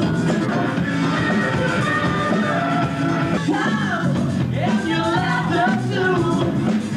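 A live rock band playing: electric guitar and drums, with singing over it that bends up and down about halfway through.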